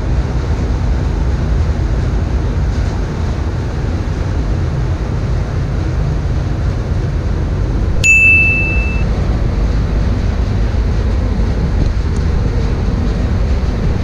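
Steady low rumble of a moving ship, heard on deck with wind on the microphone. About eight seconds in, a single bright notification-style ding rings for about a second, a sound effect of a subscribe-and-bell graphic.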